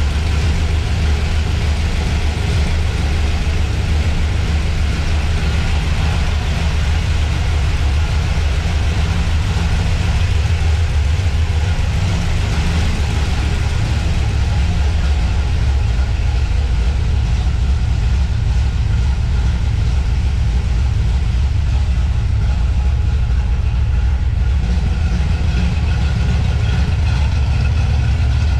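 A 1971 Dodge Demon's 318 V8 idling steadily, warming up after its first start in a year.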